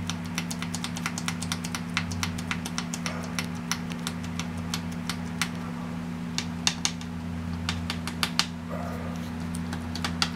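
Irregular light clicks and taps, a few a second, from hand work on an open motorcycle engine, over a steady low hum.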